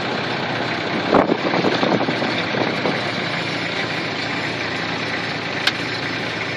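An old Land Rover's engine running steadily, heard from inside the cab. There are a few rattling knocks about a second in and a single sharp click near the end.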